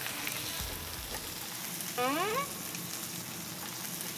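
Beef small intestines (sogopchang) sizzling steadily on a hot metal grill pan. About two seconds in, a short rising tone sounds over the sizzle, the loudest sound here.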